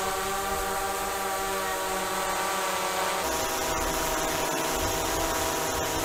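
DJI Mavic 2 Pro quadcopter hovering on Master Airscrew Stealth low-noise propellers: a steady, multi-toned hum from the motors and props, described as quieter and smoother in pitch than standard props. About three seconds in the tone shifts slightly and a low rumble grows.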